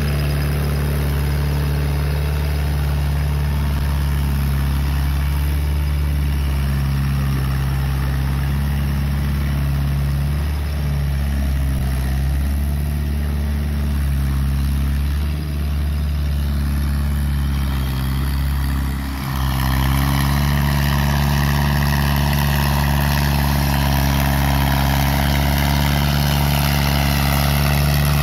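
New Holland TD80 tractor's diesel engine running steadily under load as its rear implement works wet paddy mud. About two-thirds of the way through the sound shifts a little louder and brighter.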